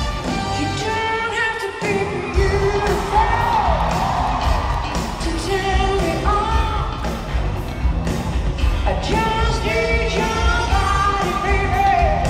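Live pop concert: a female lead vocalist sings with a full band over a steady bass and drum beat. The low end drops out for about a second around two seconds in, then the beat comes back.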